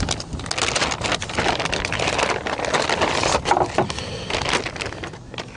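Thin clear plastic packaging bag crinkling and rustling as it is torn open and pulled off by hand, a dense irregular crackle that eases off near the end.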